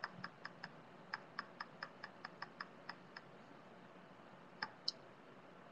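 Faint light clicks at a computer, about four a second for some three seconds, then two more about a second and a half later.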